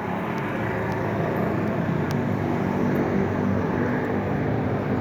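Steady engine and road noise of a vehicle on the move, a low continuous rumble.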